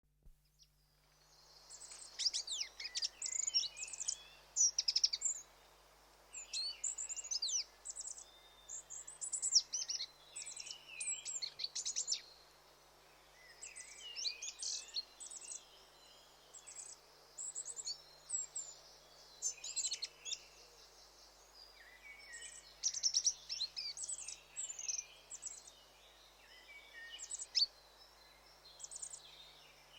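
Goldcrest singing and calling: phrases of very high, thin, rapid notes, repeated in bursts every second or two, over a faint steady hiss.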